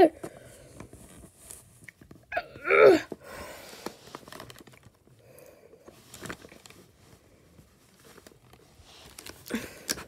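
Light plastic clicks and rustling as the rings of a plastic toy puzzle cylinder are turned and handled, with a short wordless vocal sound from the child about two and a half seconds in and another brief one near the end.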